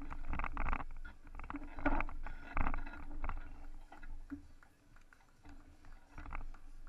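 Rumbling and rustling noise close to an action camera's microphone, with bunches of short scuffs and knocks that are loudest about two seconds in and thin out in the second half.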